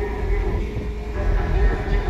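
Bass-heavy music played through two 15-inch Sundown Audio X-15 car subwoofers, the deep bass dominating and pulsing.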